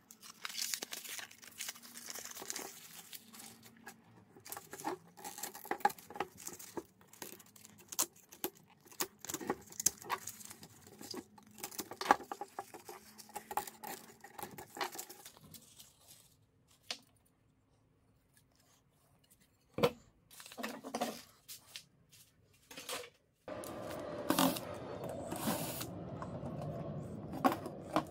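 Tearing, crackling and scraping as the paper cone and surround of a ceiling speaker are ripped and cut out by hand. There is a quiet spell in the middle with a few knocks, then a louder, denser stretch of rustling and scraping near the end.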